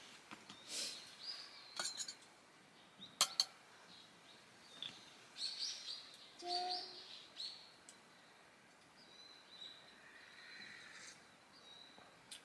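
Small birds chirping and calling on and off. A few sharp knocks come between about two and three and a half seconds in, and they are the loudest sounds.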